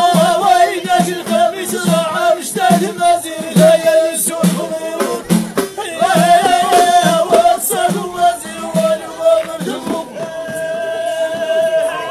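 Ahidous: a line of men chanting together over steady bendir frame-drum beats, about three a second. Near the end the drumming stops and the voices hold one long note.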